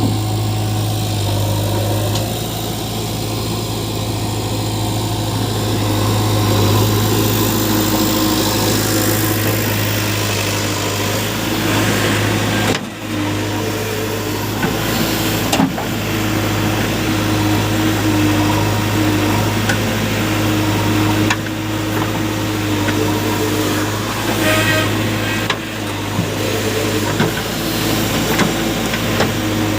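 Heavy diesel engine of earthmoving machinery running steadily, with a few short knocks and brief drops in sound near the middle and later on.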